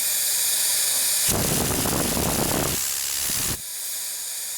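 Air-driven cyclone vacuum cleaner running on compressed air with a steady hiss. About a second in, a rougher, fuller rush of air joins for about two seconds. It then cuts off abruptly, leaving a thinner hiss.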